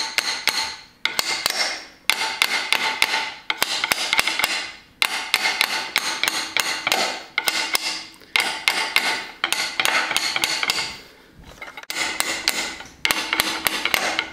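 A hammer rapidly tapping a steel 7/8 combination wrench whose box end sits over the driveshaft on a water pump carrier, driving the carrier home into an outboard's lower unit. The taps come in quick runs of about a second, broken by short pauses, and the wrench rings metallically after each one.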